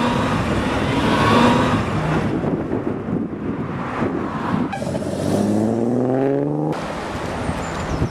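Car engines running and accelerating. About five seconds in, one engine's pitch rises steadily for nearly two seconds, then cuts off abruptly.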